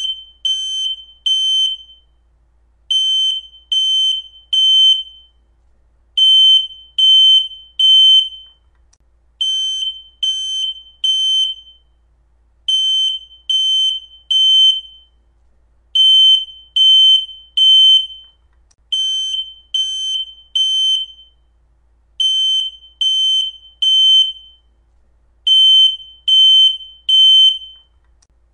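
Smoke alarm sounding in full alarm: loud, high-pitched beeps in groups of three with a pause between groups, repeating steadily. This is the temporal-three evacuation pattern that signals smoke detected, not the single chirp of a low battery.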